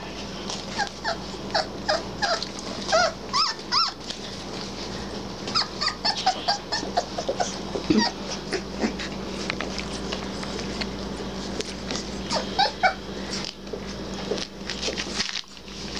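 Three-week-old basset hound puppies making short, high little calls in bunches as they play together. These are puppies just finding their voices.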